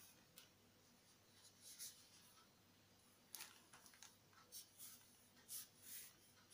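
Felt-tip marker scratching across paper in short, irregular strokes as words are written; faint.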